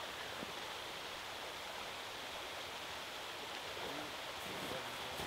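Steady rushing of a flowing stream, an even hiss that does not change, with a few faint soft steps in snow about four seconds in.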